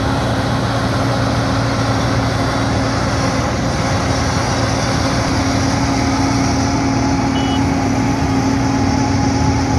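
Wirtgen W 100 H cold milling machine at work: its diesel engine runs under load with a steady hum while the milling drum grinds off the asphalt road surface. The sound is loud and unchanging throughout.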